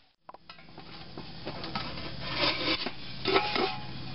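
Scraping and rubbing of the metal paint-can crucible and the charcoal sticks inside it being handled, with scattered clicks and a couple of short ringing clinks. It begins after a brief silent gap.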